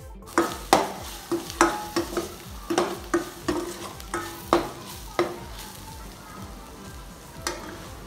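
A perforated steel spoon scrapes and knocks against a steel pan, stirring vegetables and spices frying in oil. There are about a dozen clanks in the first five seconds and one more near the end, over a steady sizzle.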